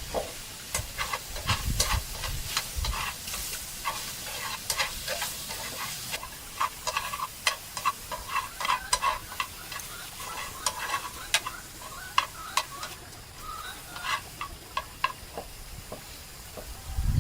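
Food frying in a pan and being stirred: a utensil scrapes and clinks against the pan in quick, irregular strokes over a faint sizzle.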